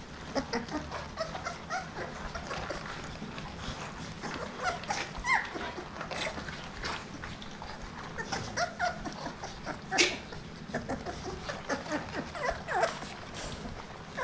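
A litter of Rottweiler puppies whimpering and yipping in many short high squeaks while they eat their first dry kibble, with scattered clicks and crunches throughout and one sharp click about ten seconds in.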